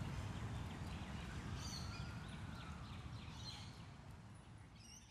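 City park ambience after rain: a steady low hum of distant city traffic with a few short bird chirps, the whole fading out.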